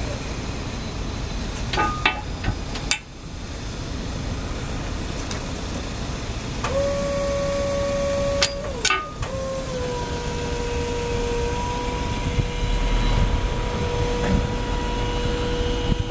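Hydraulics of a Maxi Lift 150.2 truck-mounted crane whining as the boom is worked, over the low rumble of an engine and a few sharp clicks and knocks. The whine comes in about seven seconds in, breaks off briefly, then holds steady at a slightly lower pitch as the crane is stowed.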